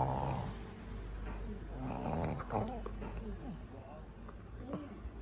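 A pet dog snoring in its sleep: one snore at the start and another about two seconds in.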